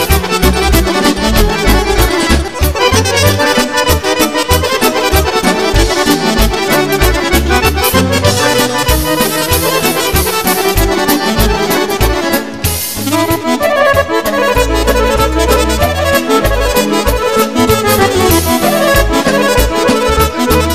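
Accordion-led traditional Serbian folk music playing loudly, with a steady pulsing bass beat.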